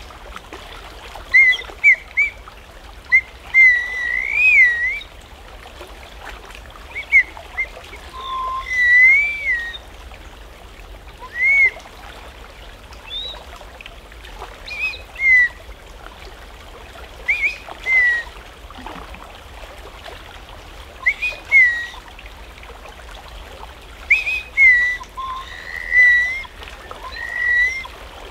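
A handheld bird-call whistle blown in short warbling chirps that rise and fall around one pitch. They come in groups every second or two with pauses between, over the steady rush of a creek.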